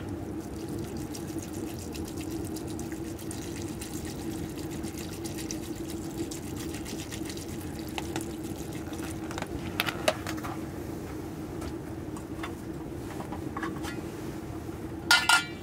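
Pot of broth simmering on a wood-burning stove: a steady bubbling sound, with a few small clicks and two sharp clicks near the end.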